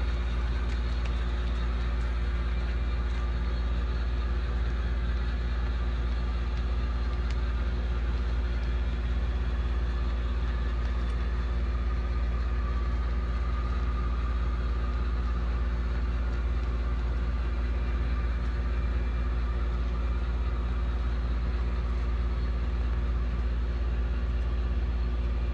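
HO scale model ore train rolling past on the layout: a steady low hum with a light rolling rattle and a few faint clicks.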